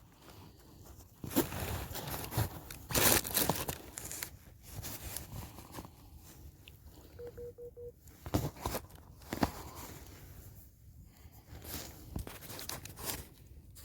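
A person eating by the fire: irregular crunching bites and chewing of dry food.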